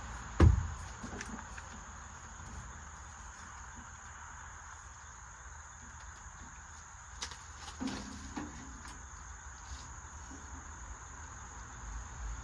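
A heavy thump about half a second in, then a few light knocks and clanks, from welding gear being handled and set onto a metal welding cart. A steady high-pitched tone and hiss sit underneath.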